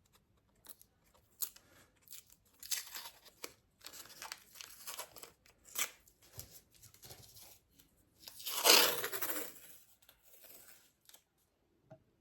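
Adhesive tape being pulled off the roll and torn into strips, a run of short rips and crinkles with one longer, louder rip about eight and a half seconds in.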